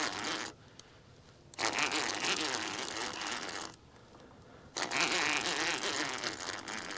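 Fishing reel being cranked to bring in a hooked catfish, a fast clicking whir in bursts of about two seconds with pauses of about a second between, as the angler pumps the rod and reels on the way down.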